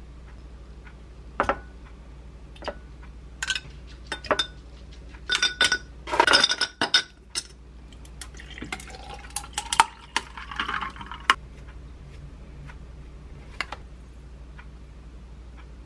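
Scattered clinks and knocks of glass and tableware on a counter, loudest about six seconds in, then a drink poured from a bottle into a glass jar for about three seconds.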